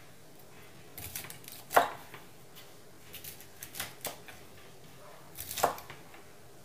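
Chef's knife chopping a bundle of long beans on a wooden cutting board: irregular knocks of the blade through the beans onto the board, coming in small clusters, the loudest about two seconds and five and a half seconds in.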